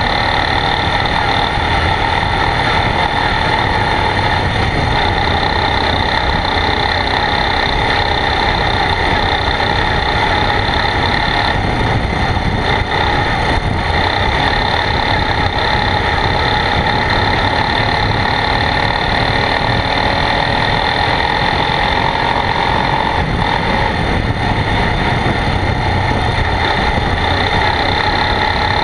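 ATV engine running at a steady pitch as the quad rides along a dirt trail.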